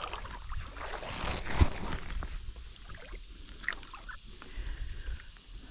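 Water splashing around a kayak with handling knocks, and one sharp thud about one and a half seconds in.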